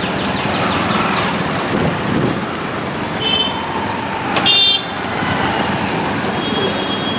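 Busy street traffic heard from a moving auto-rickshaw: a steady rumble of engines and road noise, with two short horn toots about three seconds in and again around four and a half seconds, the second one the loudest.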